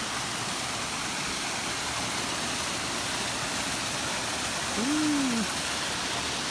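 Creek water rushing over rocks in a small cascade, a loud, steady hiss that swells up and fades away again as the spot is passed. About five seconds in, a person gives a brief hum that rises and falls.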